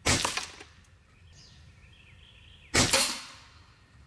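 Two shots from a Reximex Throne Gen 2 Compact .22 PCP bullpup air rifle, about two and a half seconds apart, each sharp and brief and fading within about half a second.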